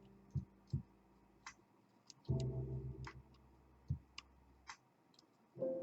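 Short pick prodding the bottom pin stacks in a KABA Gemini lock's keyway: a scattering of small metallic ticks and clicks. About two seconds in there is a short ringing metallic twang that fades away.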